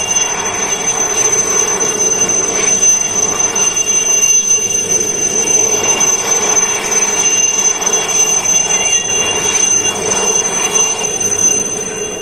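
Helicopter running: a steady high-pitched turbine whine over a loud, continuous rushing noise.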